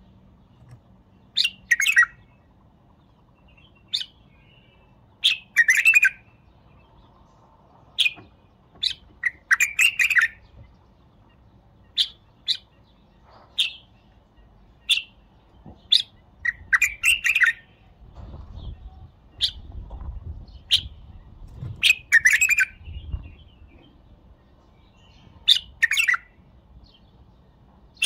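White-eared bulbul singing: short, loud whistled phrases and single notes, repeated every second or two.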